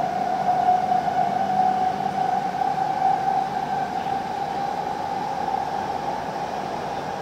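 Cabin running noise of a W7 series Shinkansen: a steady hiss with a high whine that rises slightly in pitch over the first three seconds, then eases.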